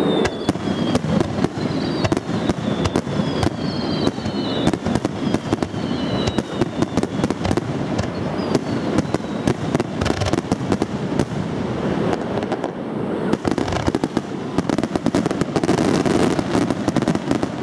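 Fireworks display: a dense, continuous run of bangs and crackling, with several high whistles falling in pitch during the first few seconds.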